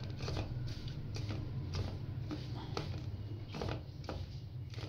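Hand mixing flour in a metal bowl: soft rustling with irregular light scrapes and taps against the metal, about two or three a second, over a steady low hum.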